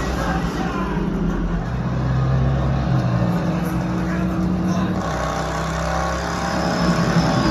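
Motor vehicle engines running hard in a film action sound mix, their low pitch holding and then stepping up and down several times.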